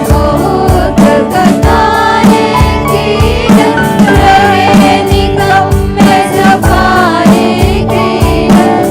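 Gospel worship song: voices singing together over a band with a steady drum beat of about two hits a second.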